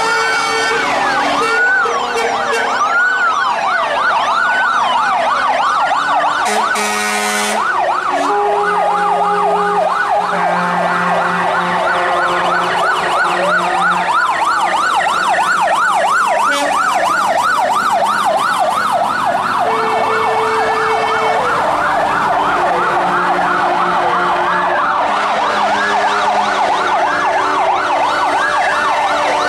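Sirens of several old fire trucks sounding at once as the column drives past, many rising and falling wails overlapping, some cycling quickly. Long steady horn notes sound now and then over them.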